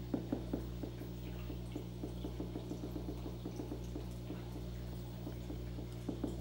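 Electric eel's electric discharges, made audible as a train of short clicks over a steady electrical hum. The clicks come several a second at first, thin out to a few faint ticks in the middle, and pick up again near the end.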